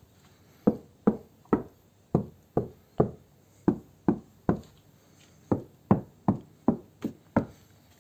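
Knuckles knocking on a Land Cruiser's rear door, lined with butyl sound-deadening sheets: about sixteen short thuds in three quick runs, with a pause of about a second before the last run.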